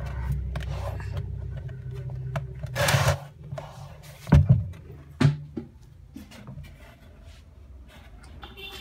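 A large plastic drum being handled: a low rumbling, a brief rush of noise about three seconds in, then a few sharp knocks on the plastic.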